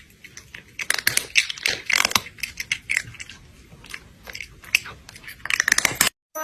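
Crunchy chewing, something being bitten and eaten in irregular crunches, that cuts off abruptly near the end.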